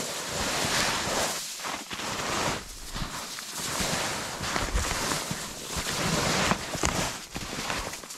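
Footsteps through snow and undergrowth: a run of noisy steps with short breaks between them.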